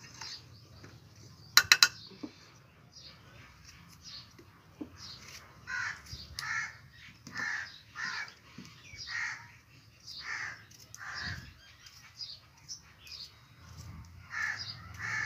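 Crows cawing repeatedly, harsh calls coming about once a second from about five seconds in. Early on there is a quick clatter of three sharp clicks, the loudest sound.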